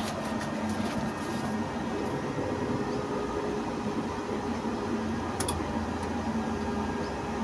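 SNAT 1 kW 24 V toroidal pure sine wave inverter humming steadily while switched on, with a single sharp click about five seconds in as a button on its front panel is pressed.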